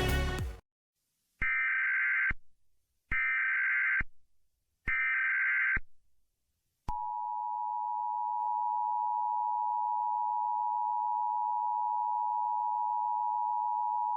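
Music cuts off just under a second in. Three short Emergency Alert System SAME digital header bursts follow, about a second each. About halfway through, the steady two-tone EAS attention signal starts and runs on.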